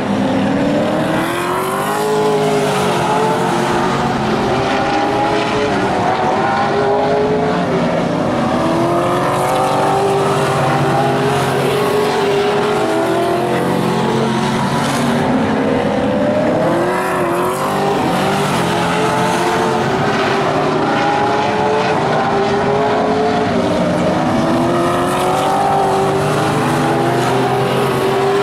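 A pack of vintage modified race cars running laps together, several engines at once, their pitch repeatedly rising and falling as the cars accelerate out of the turns and ease off into them.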